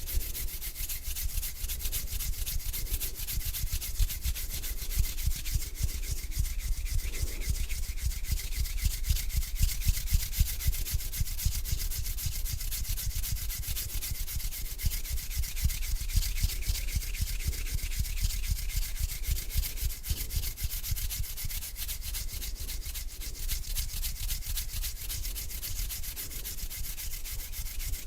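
Hands rubbing together slowly, skin on skin close to the microphone: a continuous dry friction with fine crackle.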